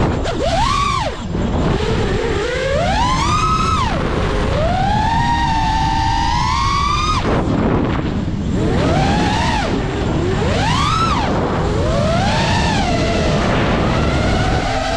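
FPV racing quadcopter's brushless motors and propellers whining, the pitch swooping up and down with each throttle punch and chop, over a rush of wind. One long climbing whine about four seconds in cuts off sharply as the throttle is chopped.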